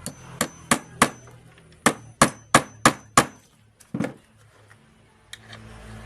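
Hammer blows in quick runs: four strikes, a pause, five more, then two, the first with a brief metallic ring.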